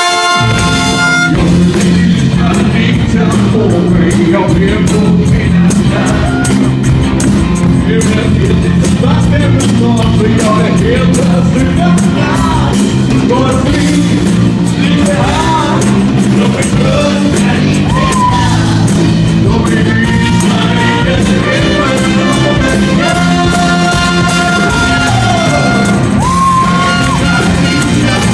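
Live band playing loudly in a large hall: drums, bass guitar and a horn section with trumpet, and a man's voice singing over it at times.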